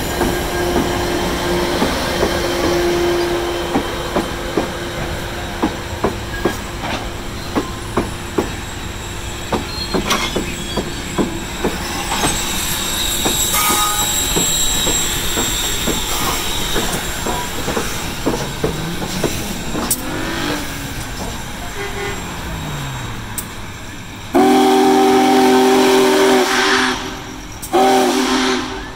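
Union Pacific Big Boy steam train rolling past at close range, a steady rumble with its wheels clicking over the rail joints. About 24 seconds in, a loud chime whistle sounds one long blast, then a short one just before the end.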